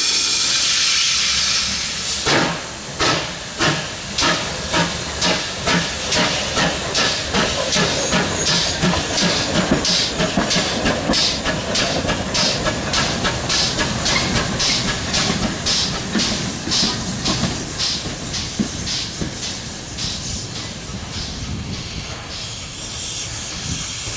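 Ex-GWR 57xx pannier tank steam locomotive moving off. A loud hiss of steam comes first, then chimney exhaust beats start about two seconds in and quicken steadily as it picks up speed. The beats grow fainter near the end as it moves away.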